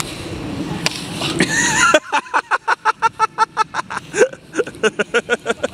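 A golf club strikes a golf ball balanced on a man's face: one sharp crack a little under a second in, over steady outdoor noise. About two seconds in the sound cuts abruptly to a quick train of short pitched bursts, about five a second.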